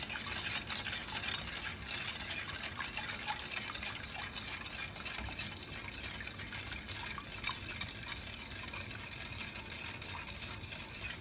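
A wire whisk stirring orange juice and sugar syrup in a stainless steel pot, with many small ticks and scrapes against the metal. Beneath it runs a steady hiss as the syrup heats toward a boil.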